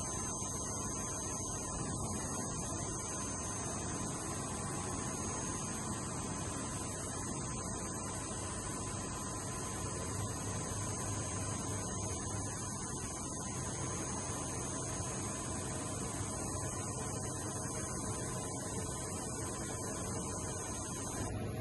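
Steady electrical hum with constant faint high whines from a powered-up Unisign UV 4000 vertical machining centre standing idle, its spindle not turning.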